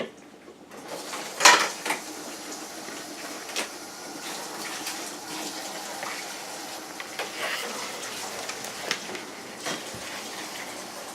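Water running steadily from a tap, starting about a second in, with a few sharp knocks and clinks over it; the loudest comes about a second and a half in.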